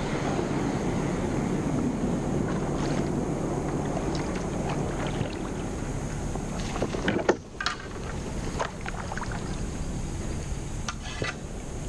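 Kayak moving through still creek water under paddle: a steady rushing hiss with splashes and drips from the paddle blades, and a sharp knock a little past halfway.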